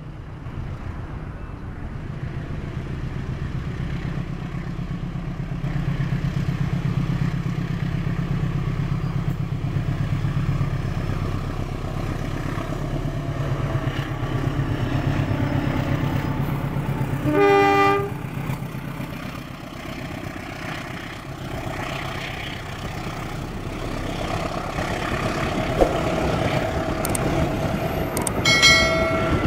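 Diesel-electric locomotive engine running with a steady low rumble that grows louder over the first few seconds. It gives a short horn blast a little past halfway and another brief one just before the end.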